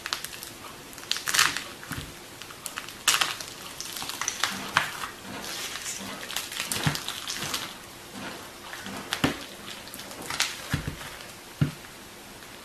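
Iceberg slime being pressed and poked by hand, its hardened top crust cracking in irregular crunches and crackles.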